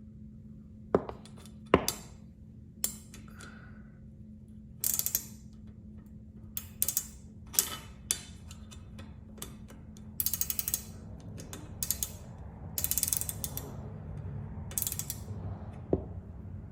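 Hand tools working the metal hardware of a garage door torsion spring: sharp metal clicks and several short bursts of rapid ratchet-wrench clicking, over a steady low hum.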